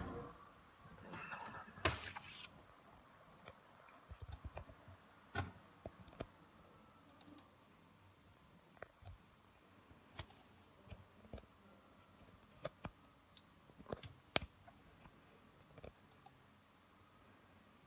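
Faint, irregular clicks, a dozen or so spread unevenly, two of the sharpest close together about two-thirds of the way through, with a short rustle in the first couple of seconds.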